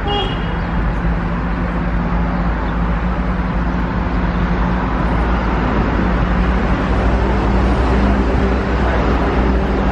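Double-decker bus driving: a steady engine hum with road and traffic noise around it.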